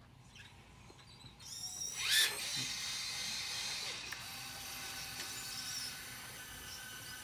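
Small electric gear motors of a hobby robot dump truck starting up with a rising whine about a second and a half in, then whirring steadily as the truck drives.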